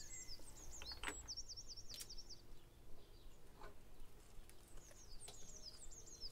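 Woodland birdsong: quick runs of repeated high chirps, once about a second in and again near the end, over a quiet background with a couple of faint knocks.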